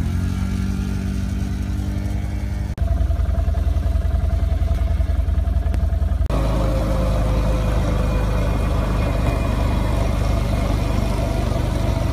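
Small youth ATV engine running as a Can-Am DS90 quad rides on a dirt trail, rising a little in pitch at first; the engine sound changes abruptly about three seconds in and again about six seconds in.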